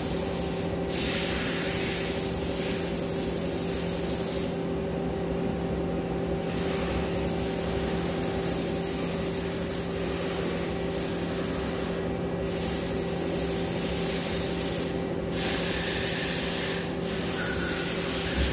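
Okuma L370 CNC lathe running a boring cut with a boring bar: a steady hum from the spindle and drives under a constant hiss of coolant spray. The hiss drops away briefly several times, longest for about two seconds near the quarter mark.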